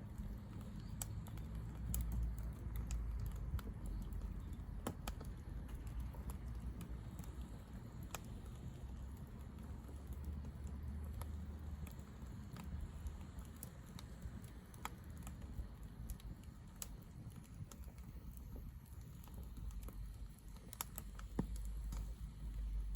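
Firewood burning in a fire pit, crackling with irregular sharp pops and snaps over a low steady rumble.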